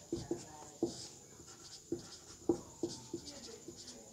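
Marker pen writing on a whiteboard: a series of short taps and light squeaks, one for each stroke, irregularly spaced.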